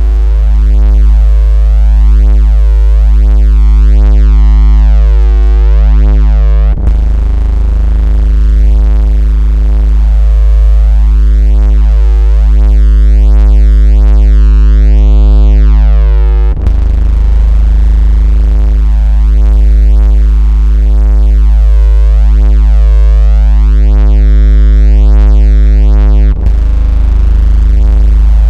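Loud, steady electronic 56 Hz bass tone with a stack of overtones above it, dipping briefly about every ten seconds where the loop restarts. It is a vibration tone of the kind played to make a phone buzz, shake water out of its speaker, or test bass.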